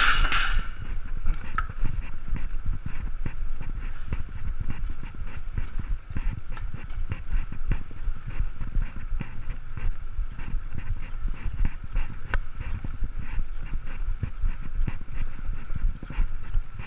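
Point-of-view ride on a mountain bike over tarmac: a low rumble of wind and tyres with a constant irregular rattle of clicks and knocks from the bike and camera mount over the bumpy path. A brief bright noise sounds at the very start.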